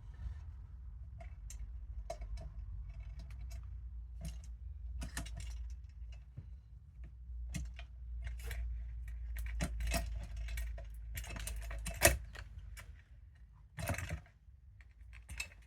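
Small metal parts clinking and rattling with many irregular sharp clicks, as pop rivets and metal pieces are handled, with a low rumble of handling noise underneath. A louder sharp click comes about 12 s in.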